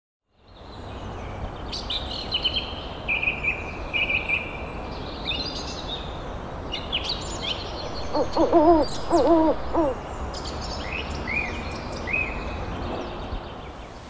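An owl hooting in a quick series of about five notes around the middle, over songbirds chirping and twittering throughout.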